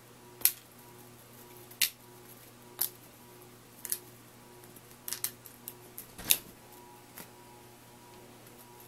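A series of sharp clicks, about one a second, with a quick cluster a little after five seconds in and the loudest, with a dull thump in it, just after six seconds. A faint steady hum runs underneath.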